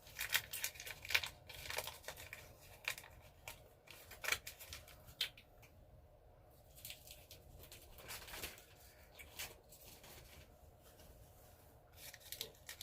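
Someone chewing a hard, sticky fruit chew candy: a faint run of short, irregular mouth clicks and smacks.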